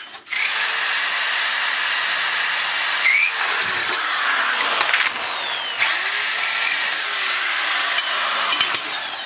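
Power drill running at full speed with a high whine, then released and winding down with a falling pitch. It is run up again about six seconds in and coasts down once more near the end.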